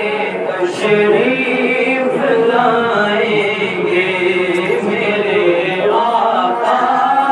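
A man singing a naat, an Urdu devotional poem in praise of the Prophet Muhammad, solo into a microphone, in long, wavering held notes.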